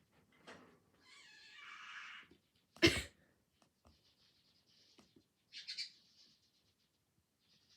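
A person's sneeze provoked by tickling the nose with a twisted paper string: a breathy drawn-in breath for about a second, then one sharp, loud sneeze about three seconds in. A short sniff follows near six seconds.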